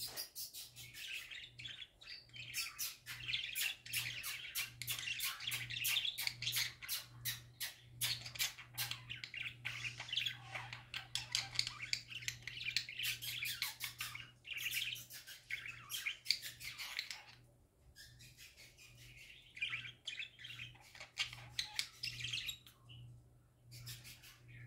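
Budgerigar warbling: a long, rapid chatter of clicks, chirps and squeaky notes, the song of a contented pet parakeet, broken by short pauses about two-thirds of the way through and again near the end.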